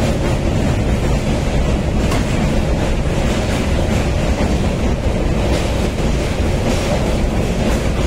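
Train running at speed across a steel truss rail bridge, heard from inside the coach: a steady, loud rumble of wheels on rails with occasional faint clicks.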